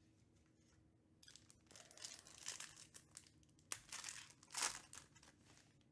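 Foil wrapper of a Topps Chrome Black baseball card pack crinkling and tearing as it is ripped open by hand, a run of crackling rustles starting about a second in.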